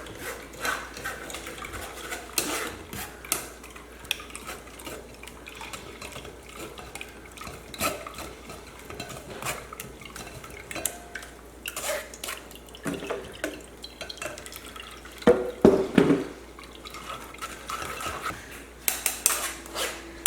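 A spoon stirring and pressing blended watermelon through a sieve, with irregular clinks and taps of the spoon against the sieve and bowl. About three quarters of the way through comes a louder clatter of ringing knocks.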